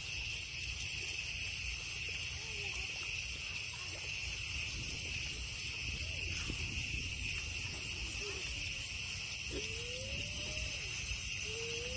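Steady high chorus of insects in the background, with a toddler's faint short vocal sounds now and then, the clearest near the end.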